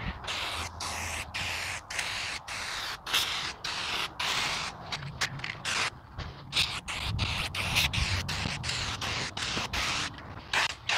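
Rust-Oleum Turbo Can aerosol clear coat hissing in spray passes, cut off briefly many times between strokes.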